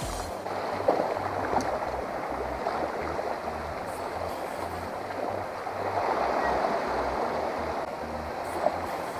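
Small sea waves washing in over shallows and rocks at the water's edge, a steady hiss of water that swells a little past the middle. A low, uneven rumble runs underneath.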